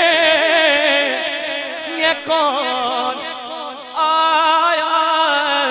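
A man sings a naat unaccompanied into a microphone over a PA. He holds long notes with a strong waver in the pitch, and breaks off briefly about two and four seconds in before carrying on.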